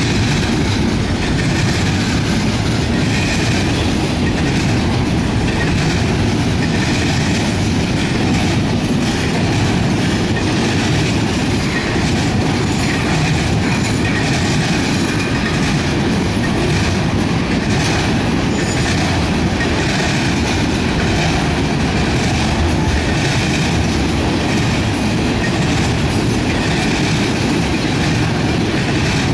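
CSX intermodal freight train passing close by, its container well cars and trailer-carrying flatcars rolling past in a steady, loud rumble of steel wheels on rail with clickety-clack over the rail joints.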